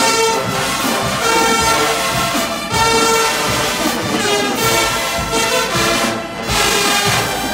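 Marching band playing live, led by its brass section of sousaphones, trumpets and trombones, sounding loud held chords in short repeating phrases.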